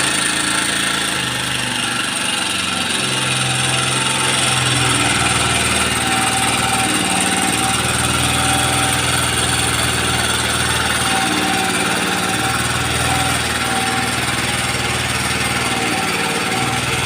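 Engine-driven machinery running steadily, its pitch stepping up and down every few seconds as the load changes.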